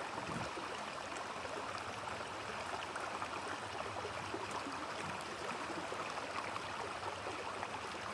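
Shallow forest stream running steadily, a continuous babble of water with small scattered splashes.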